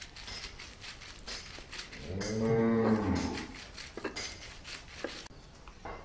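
A cow moos once, a low call lasting about a second, around the middle. Before and after it comes the rasp of a stone roller grinding wet herbs on a flat grinding stone in repeated strokes.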